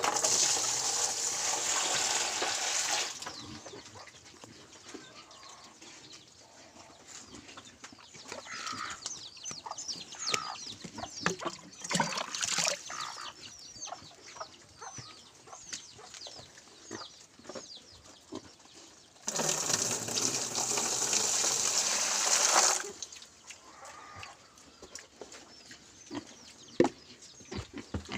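Water poured from a plastic pitcher splashing into a plastic tray, twice, each pour about three seconds long, the first at the start and the second past the middle. Between the pours, quieter scattered knocks and faint animal calls.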